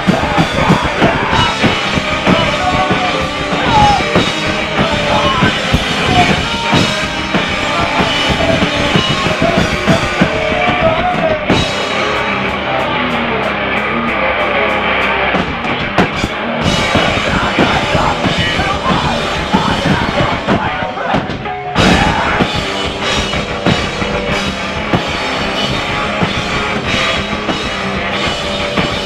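Rock band playing live: electric guitars and a drum kit, loud and dense. Around twelve seconds in the high end thins out for about five seconds. Near twenty-one seconds the band drops out briefly, then comes back in hard.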